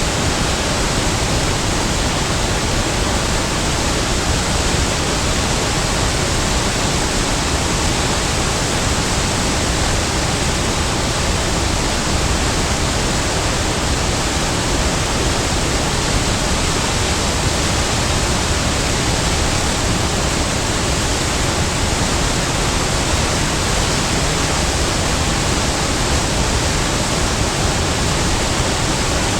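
Big waterfall: a loud, steady rush of falling water, even and unchanging, spread from a deep rumble up to a hiss.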